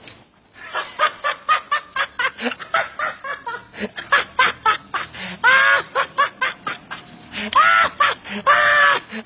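Hearty laughter in rapid short bursts, breaking three times in the second half into high-pitched squealing laughs.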